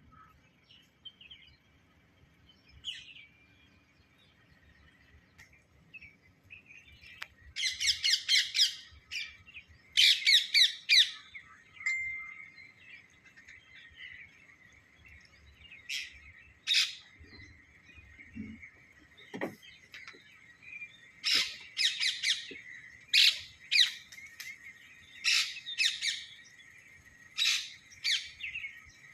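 Parrot chirping in quick runs of short, high calls, with quiet gaps between, then scattered single calls and short bursts.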